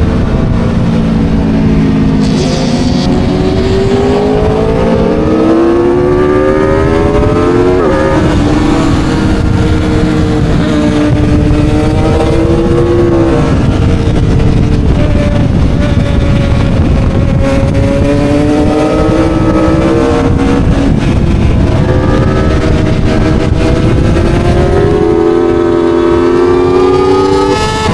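Aprilia Tuono V4 motorcycle's V4 engine at speed, heard from on the bike: the pitch climbs hard under acceleration, then drops sharply with shifts and braking, over and over, with a rumbling noise underneath.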